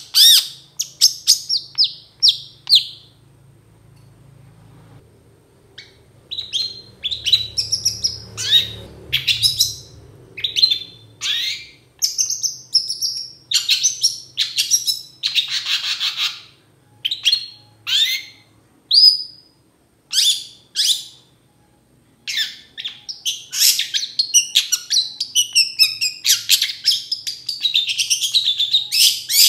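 Long-tailed shrike (cendet) singing: a run of quick, varied chirps and harsher notes, breaking off for about three seconds near the start before picking up again.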